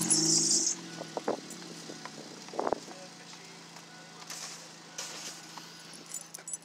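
Car engine starting and then idling steadily, with a brief hiss as it catches. Two sharp knocks come about a second and two and a half seconds in.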